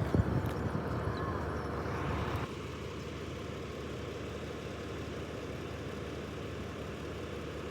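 Concrete mixer truck running, with a steady mechanical noise from the engine and turning drum. A knock at the start opens a louder rushing noise, which cuts off abruptly about two and a half seconds in.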